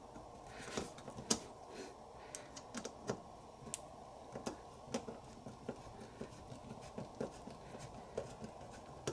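Faint, irregular small clicks and scrapes of a hand screwdriver turning a screw into a plastic end bracket on an aluminium tube.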